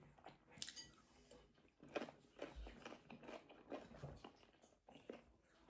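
Faint chewing of food, heard as irregular soft crunches and small clicks at a meal.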